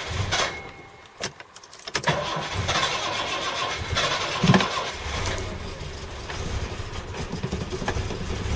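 Series 1 Jaguar XJ6's XK straight-six cranking and catching on a cold start without a choke, running unevenly at first, then settling into a slow, pulsing cold idle.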